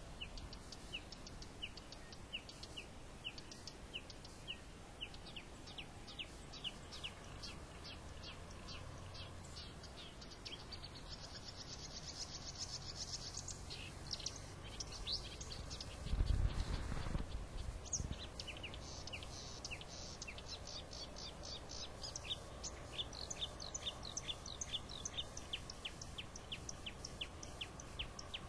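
Small birds chirping outdoors, a steady run of short falling chirps about two to three a second, with a faster trill partway through. About sixteen seconds in there is a brief low rumble.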